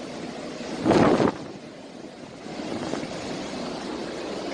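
Steady rushing noise of hurricane wind and rain. About a second in there is one brief loud burst.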